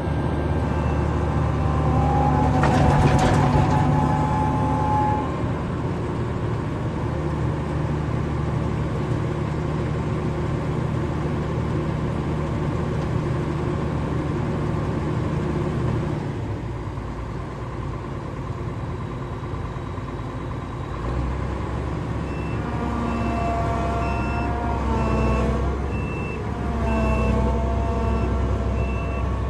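Combine harvester's diesel engine running steadily. In the last third, an electronic warning beeper sounds in a steady run of short beeps, about one and a half a second, over a wavering whine.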